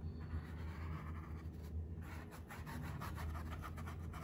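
Small paintbrush stroking acrylic paint across a stretched canvas: soft, scratchy brushing that grows busier with quick short strokes in the second half, over a steady low hum.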